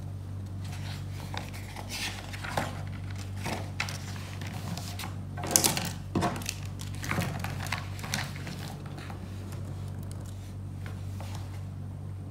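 Paper notebook being handled on a desk: set down, opened, and its pages rustled and smoothed flat by hand, with scattered rustles and soft knocks, the loudest around the middle. A steady low hum lies under it.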